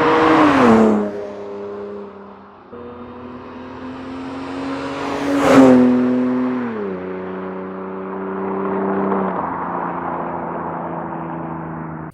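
Lexus IS300's 2JZ inline-six accelerating under load, its pitch climbing and then dropping sharply at each upshift, about a second in, again near seven seconds and once more near nine seconds. Two loud swells with a rush of air peak about half a second and five and a half seconds in.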